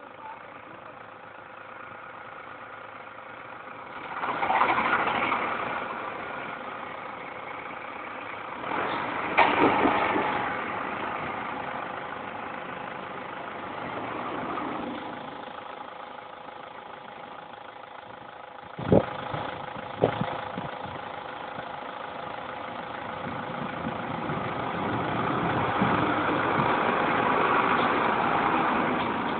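Tractor engine running, its note swelling and falling several times as it revs while maneuvering. Two sharp knocks about two-thirds of the way through.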